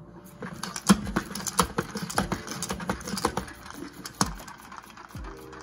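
Pump-action salad spinner being pushed repeatedly to spin the water off cut komatsuna greens. Its plastic basket and mechanism make a rapid, irregular clatter of clicks over a steady hiss.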